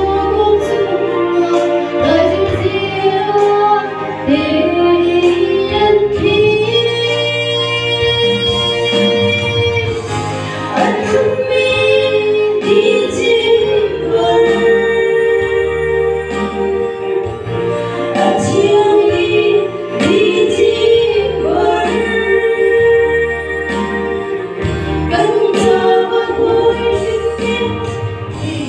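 A woman singing a slow Christmas song solo into a microphone, amplified over loudspeakers, over steady sustained instrumental accompaniment.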